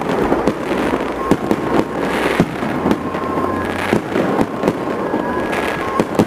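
Fireworks display: an irregular run of sharp bangs and crackles, several a second, over a continuous rumble of bursts, with a few thin steady tones sounding over them.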